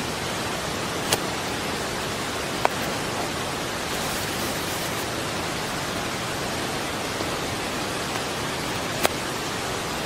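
Steady rushing of river water, with three short sharp clicks of a knife against a plastic cutting board as potatoes are cut: about a second in, after nearly three seconds, and near the end.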